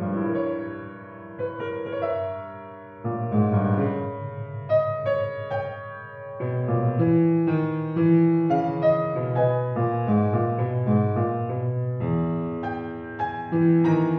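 Solo piano music: chords and a melody over held bass notes, with new notes struck every half second or so.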